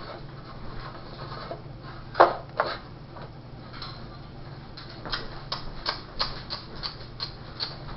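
Paintbrush tapping and dabbing paint onto a hard plastic mask: scattered light taps, two louder ones about two seconds in, then a quicker run of taps, about three a second, from about five seconds in.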